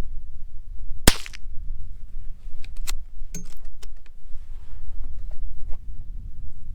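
.22 rimfire bolt-action rifle firing a single sharp shot about a second in, followed by a few lighter metallic clicks of the bolt being worked.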